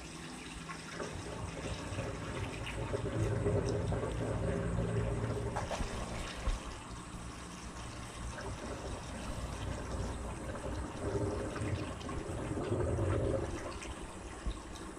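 Panasonic NA-F70G5 top-loading washing machine running a spin cycle: water splashes and drains from the tub while the drum and motor surge louder twice, from about a second in to six seconds and again near the end.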